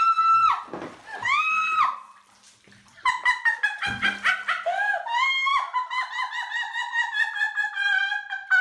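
A person's high-pitched screams: two short shrieks, then a long shrill squeal that wavers rapidly and slowly sinks in pitch before cutting off suddenly.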